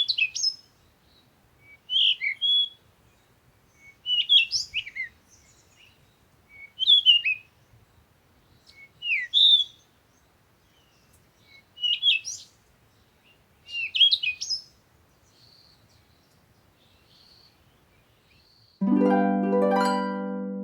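A songbird chirping in short, quick phrases of sliding high notes, one about every two seconds. Near the end a single sustained musical note or chord comes in suddenly and slowly fades.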